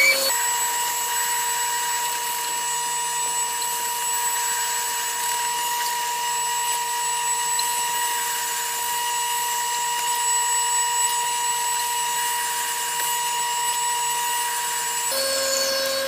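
A lathe running steadily while a 3/8-inch drill bit in the tailstock bores through a spinning cast Alumilite resin pen blank, with a steady whine over the noise of the cut. The tone changes slightly about a second before the end.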